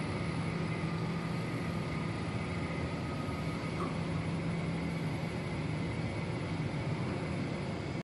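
Coaxial-cable screening (taping) machine running steadily in production: a constant mechanical hum with a low drone and a faint high whine over it.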